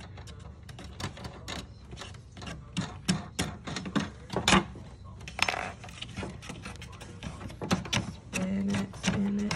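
Irregular small clicks and taps of screws being spun out by hand from a cardboard panel fixed to a plastic bassinet base, with one louder knock about halfway through.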